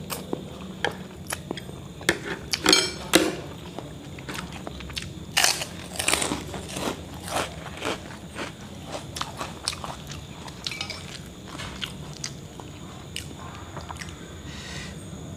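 Close-up eating sounds: noodles being slurped in, with a few loud rattling slurps in the first seven seconds, then steady wet chewing with mouth clicks. Near the end a spoon moves in a glass soup bowl.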